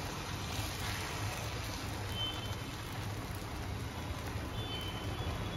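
Faint steady hiss of semolina batter cooking on a hot, oiled nonstick pan as it is spread with a ladle, over a low steady hum.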